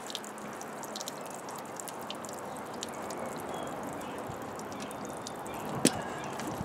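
Water trickling and dripping from a hose into a bucket standing in a tub of muddy water: a steady watery wash with scattered small drips and one sharp tap near the end.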